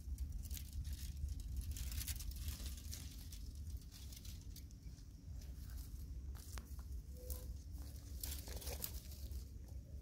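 Leaves and thin branches rustling and crackling as a young monkey climbs and pulls at them, with a cluster of louder rustles near the end. A steady low rumble runs underneath.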